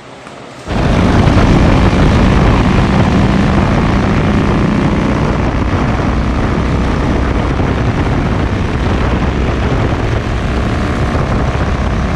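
Motorcycle engine running with a loud, steady roar that starts abruptly less than a second in.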